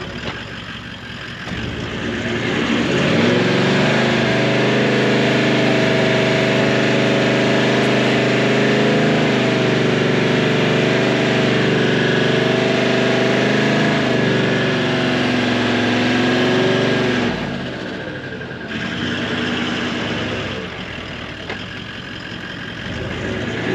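Toyota LandCruiser 70 Series 4WD engine hauling a twin-axle caravan through deep mud. It revs up hard about two seconds in, is held at high revs under load for about ten seconds, then eases off. A lower, rougher running sound follows.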